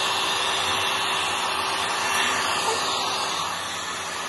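Hair dryer blowing steadily, easing slightly lower in level near the end.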